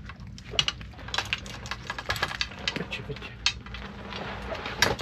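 A run of irregular sharp clicks and knocks as a freshly caught fish and the fishing gear are handled on the boat.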